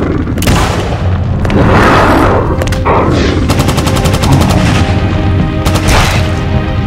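Sound-effect gunfire over a music score: several heavy single blasts and, about three and a half seconds in, a rapid burst of about a second of automatic fire.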